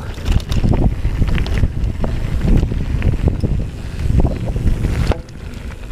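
Heavy wind noise buffeting the camera microphone, a loud low rumble, over the clicks and rattles of a mountain bike rolling on a dry dirt trail. The wind eases briefly near the end.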